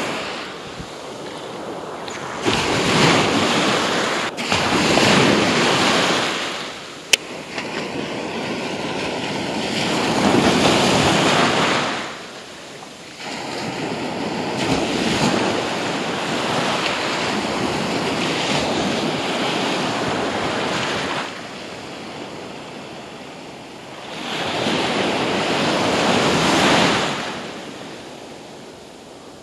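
Small surf waves breaking and washing up the sand at the shoreline, swelling and fading in several long surges, with wind on the microphone. A single sharp click about seven seconds in.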